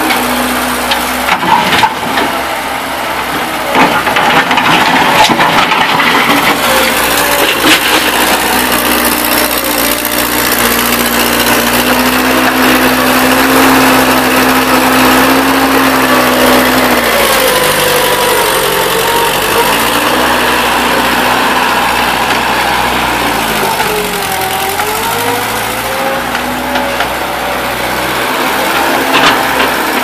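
Case 1845B skid steer's engine running as the machine drives and turns. The engine pitch holds steady for the first half, then drops and rises again a few times in the second half. Tyres crunch on gravel underneath.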